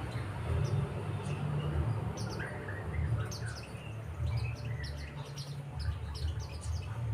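Pleci (white-eyes, Zosterops) calling with many short, high chirps and twitters, the decoy bird's calls meant to draw wild pleci in. A steady low rumble runs underneath.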